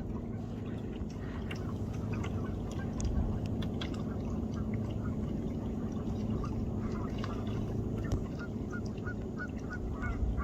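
Waterfowl calling, a quick run of short calls about three a second that grows stronger in the last few seconds, over a steady low rumble.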